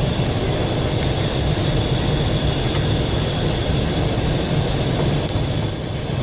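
Steady cockpit noise of a Boeing 727 in flight on approach: a constant low rumble of airflow and engines, with a thin steady high whine above it.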